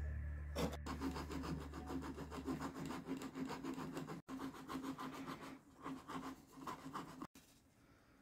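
Small metal rasp filing white cedar wood in quick, repeated scraping strokes. The strokes break off for an instant about four seconds in and stop abruptly near the end.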